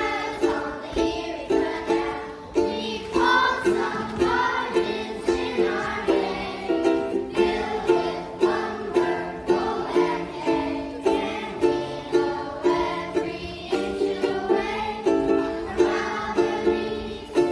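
A group of children singing a song together, accompanied by a stringed instrument strummed in a steady rhythm of about two strokes a second.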